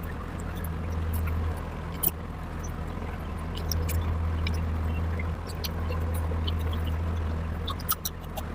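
Close-up eating sounds of mutton curry with rice: small wet mouth clicks and smacks scattered irregularly, over a steady low hum.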